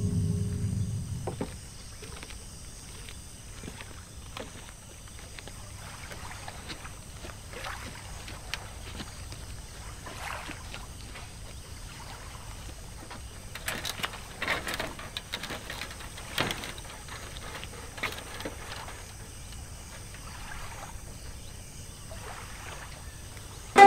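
Quiet lakeside outdoor ambience: a faint steady hiss with scattered soft knocks and small splashes, busier a little past the middle. Music fades out in the first second or two.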